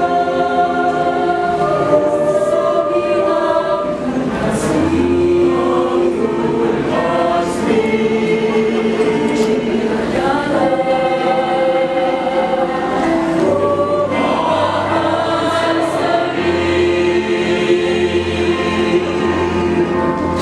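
High school choir singing in harmony, holding long chords that shift every second or two.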